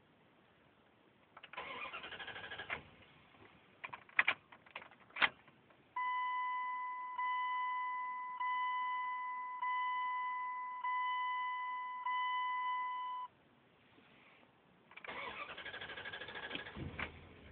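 A truck's starter cranks for about a second without the engine catching, followed by several sharp clicks. A steady high warning chime then sounds in about six pulses over roughly seven seconds, and the starter cranks again near the end, still not starting.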